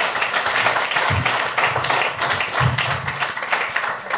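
Audience applauding, many hands clapping steadily, with two short calls from the crowd about one and two and a half seconds in.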